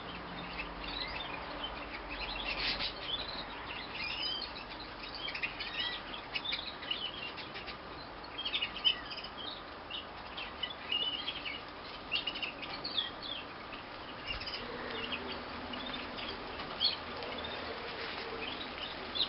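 Male canary, a white Harzer Roller, giving short scattered chirps and twittering notes of his song, with a few louder notes here and there over a faint steady hiss.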